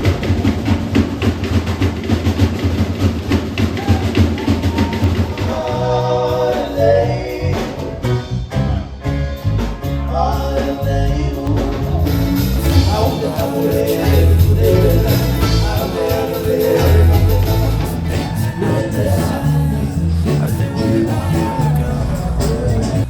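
Background pop song with a steady beat; a sung melody comes in about six seconds in.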